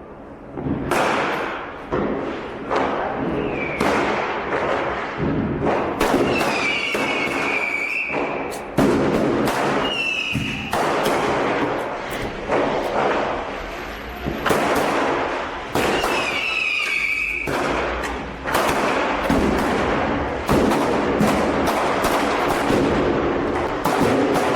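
Street fireworks and firecrackers going off: a rapid, irregular string of loud bangs, several a second at times, with a few short high whistles among them.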